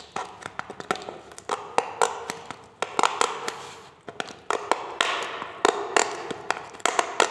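Utility cutter blade cutting and scraping at a subwoofer's cone and glued voice coil: irregular sharp clicks and taps with rasping scrapes between them.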